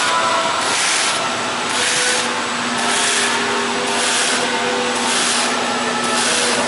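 Twin servo cutting machine running, cutting printed film into sheets: a steady mechanical whine with a burst of hiss about once a second, in an even rhythm.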